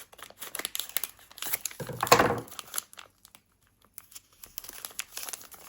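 Plastic trading-card packet wrapper crinkling and tearing as it is worked open with scissors, in quick crackles, with a louder rustle about two seconds in and a short pause before more crinkling.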